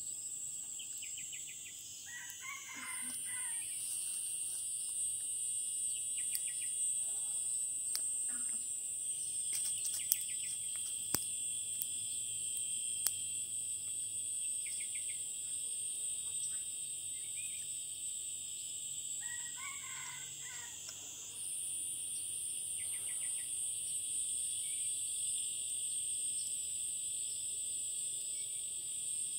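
A rooster crows twice, about two seconds in and again about twenty seconds in, with fainter crows in between, over a steady shrill chorus of insects. A few sharp clicks come near the middle.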